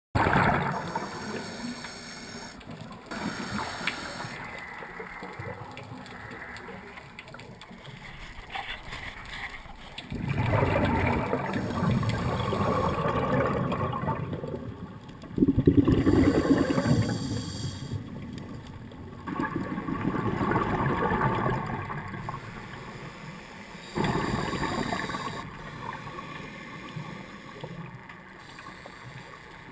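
Scuba diver breathing through a regulator, heard underwater through the camera housing: each exhalation is a loud gush of bubbles, coming about every four to five seconds, with a quieter hiss between breaths.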